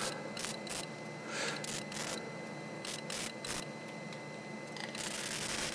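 Wire-feed welder arc crackling in short, broken bursts while mild steel box section is tack-welded, with a steadier stretch of arc hiss near the end.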